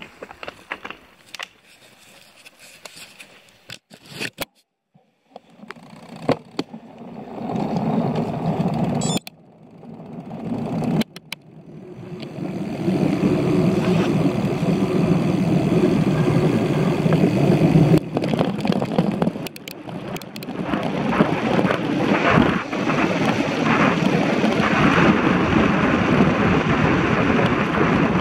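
Mountain bike riding on a wet lane: wind rushing over a handlebar-mounted action camera's microphone, mixed with tyre and rolling noise on wet asphalt. It starts quiet with a few sharp clicks and rattles, grows louder from about six seconds in, and stays loud and steady from about twelve seconds.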